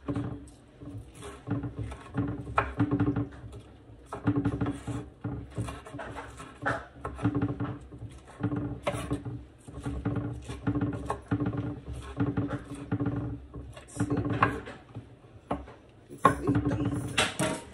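Chef's knife chopping raw shrimp on a wooden cutting board: a run of irregular knocks of the blade against the board.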